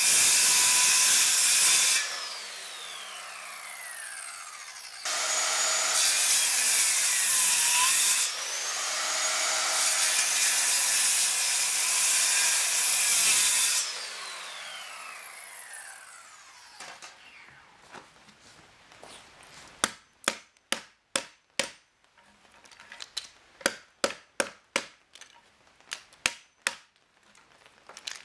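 Corded circular saw making several kerf cuts across a timber beam, its whine falling each time the trigger is released and the blade spins down. Then a run of sharp hammer blows on the wood, knocking out the slivers between the saw kerfs to form a notch.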